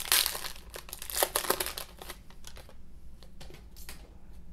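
Crinkling of a plastic trading-card pack wrapper as it is torn open and the cards are pulled out. It is dense for about the first two and a half seconds, then dies down to a few light ticks.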